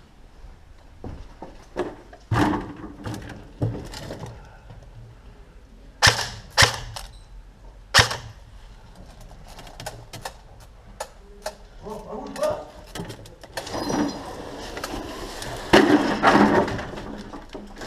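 Irregular sharp knocks and clicks of an airsoft game in progress, with three loud snaps around six to eight seconds in and a denser clatter near the end.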